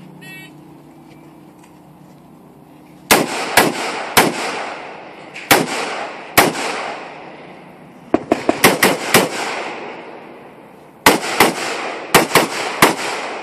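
AR-15 carbine firing about fifteen 5.56 rounds in four quick strings, the first shot about three seconds in. Each shot is a sharp crack with a trailing echo.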